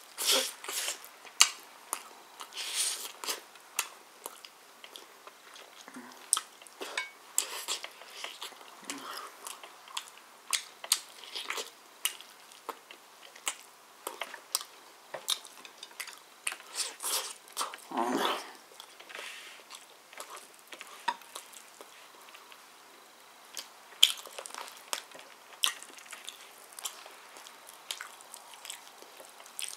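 Close-up eating of roast chicken by hand: irregular wet chewing and mouth smacks, with bites and crunches of the skin. A few sharper clicks stand out.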